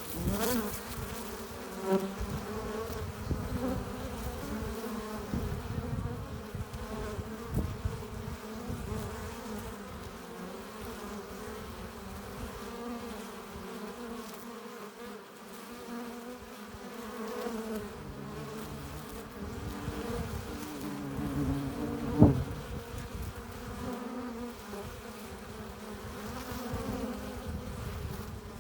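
Honeybees buzzing at a hive entrance, a steady hum whose pitch shifts as single bees pass close to the microphone. A brief sharp knock sounds about three-quarters of the way through.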